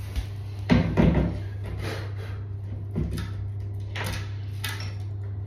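Clunks and knocks of a bath tap being handled and set onto the bath: a cluster about a second in, another knock about three seconds in, then two sharper clicks, over a steady low hum.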